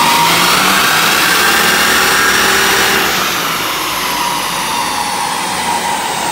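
A car on a rolling-road dyno winding down after a power run: a whine from the engine and rollers falls slowly in pitch over a steady rush of fan noise, and the level eases off after about three seconds.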